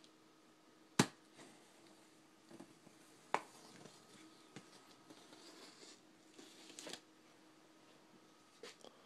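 Hands handling a taped corrugated cardboard box as it is being opened: two sharp clicks, about a second in and a little after three seconds, with light rustling and a short scratchy scrape near seven seconds.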